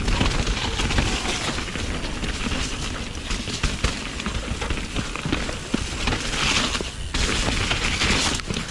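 Downhill mountain bike rattling over a rough, rocky singletrack descent: a rapid, irregular clatter of tyres, chain and frame hitting rocks and roots, over a heavy rumble of wind on the riding camera's microphone.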